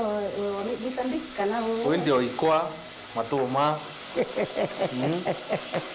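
Food sizzling as it fries in a pan, a steady hiss under a person's voice that carries on throughout.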